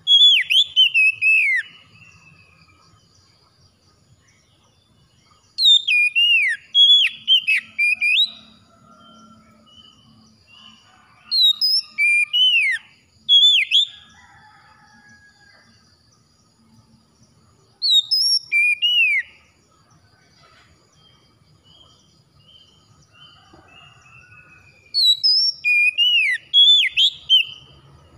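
Oriental magpie-robin (kacer) singing loud, clear whistled phrases of sweeping and slurred notes, in five bursts of a couple of seconds each with pauses between. Faint chirps from other birds sound in the gaps.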